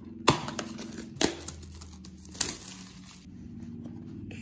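Clear plastic shrink-wrap being peeled and torn off a cardboard box, crinkling with three sharper crackles, then stopping about three seconds in.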